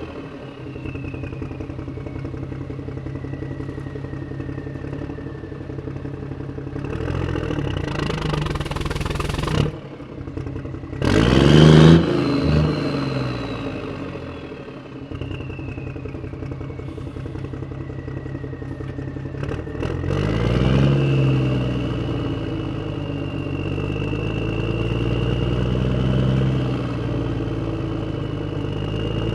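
A vehicle engine running steadily, revved up several times. The loudest rev comes about eleven seconds in, with further swells near the middle and after twenty seconds. A faint high whine falls and rises in pitch over it.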